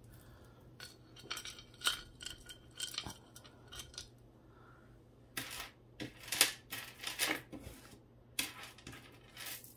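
Costume jewelry being handled: metal chain and beads clinking and rustling on and off, loudest a little past halfway.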